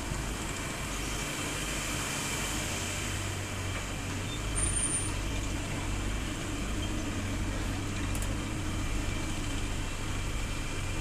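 Steady low drone of the passenger ferry's running engine machinery, unchanging throughout, with a faint high whine over it.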